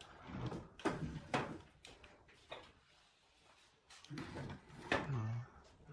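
Wooden knocks and clunks as a convertible wooden bench is folded over and its hinged frame parts swing and bump into place. There are four or so separate sharp knocks spread across the few seconds.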